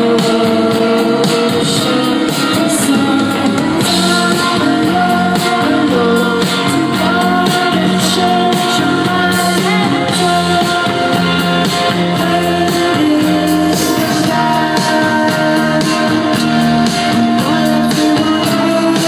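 Live rock band playing: a woman singing into a microphone over electric guitars and drums.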